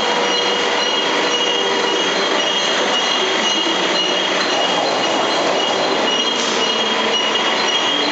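Industrial metal-parts washing line running: a loud, steady mix of electric pump motors and mesh-conveyor machinery, with high-pitched whining tones that pulse on and off.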